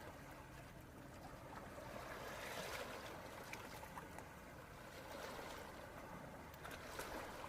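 Beach ambience: small waves washing and lapping at the shore, a steady wash of water that swells gently a couple of times.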